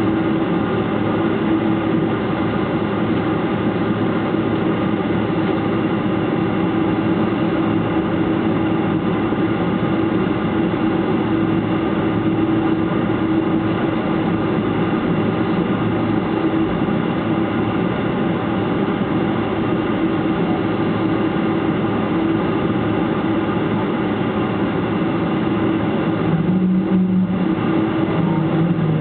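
Airliner cabin noise while taxiing after landing: the steady drone of the jet engines at low thrust, with a steady hum. A short low hum comes in near the end.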